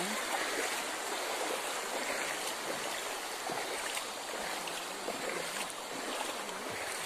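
Floodwater flowing over the ground: a steady wash of moving-water noise.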